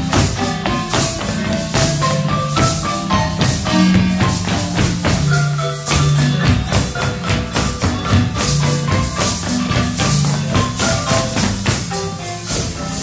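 Lively Chiapas marimba music: rapid, short mallet notes over a steady bass line, with jingling percussion on the beat, played for traditional folk dancing.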